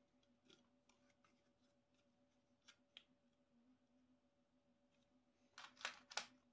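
Small assembly parts being handled: a few faint clicks, then near the end a short clattering rattle as small screws and fittings are picked from a parts tray. A faint steady hum runs underneath.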